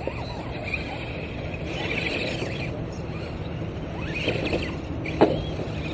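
Radio-controlled scale crawler truck's electric motor and drivetrain whining in short rising and falling pushes as the truck claws its way up over a fallen log. One sharp knock about five seconds in.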